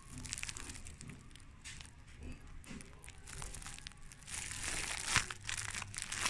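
Thin plastic film crinkling and crackling as it is handled, in irregular crackles that get a little louder over the last two seconds.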